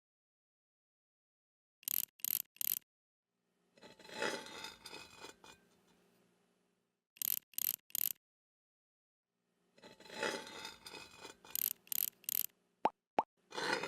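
Added scraping and rubbing sound effects, several times in groups of three quick strokes, with longer rasping stretches between them and dead silence in the gaps. Two sharp clicks come near the end.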